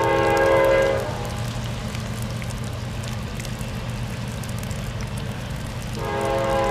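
Locomotive air horn sounding a chord of several notes, stopping about a second in and sounding again near the end, over a steady low rumble.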